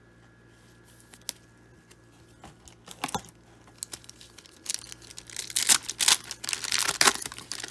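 A few light clicks of handling, then the silver foil wrapper of a baseball card pack being torn open and crinkled from about five seconds in.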